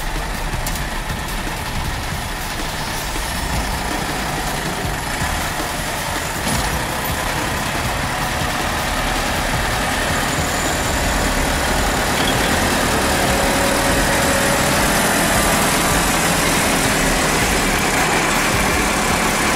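A large farm tractor's diesel engine runs under load as it tows a 4x4 pickup stuck in the mud. It grows louder from about halfway through.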